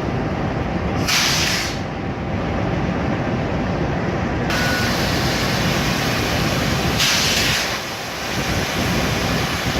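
Train running by with a steady rumble. There are two brief hissing bursts, about one second and about seven seconds in, and a steadier hiss from about halfway through.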